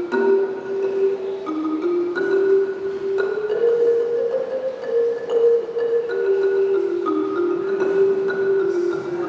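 Marimba played with mallets: a slow melody of long held notes, one note following another about every second.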